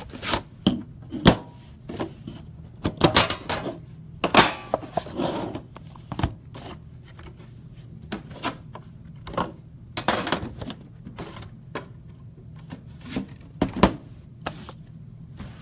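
Trading card box being opened and its packaging handled: irregular clicks, taps and rustles of cardboard and plastic, with a low steady room hum under them.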